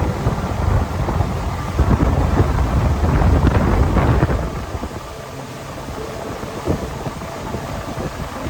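Wind buffeting the microphone over rushing water, a heavy rumbling noise that eases off about four and a half seconds in.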